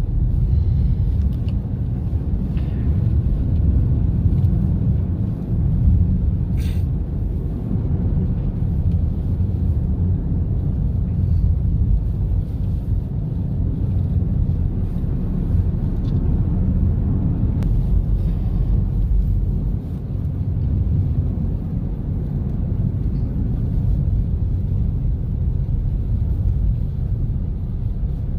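Steady low rumble of a car driving, engine and road noise. A single short click about six and a half seconds in.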